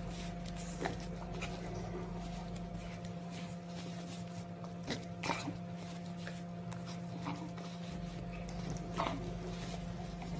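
Shar Pei puppy licking and mouthing a piece of banana: scattered short wet smacks and clicks, a few seconds apart, over a steady low hum.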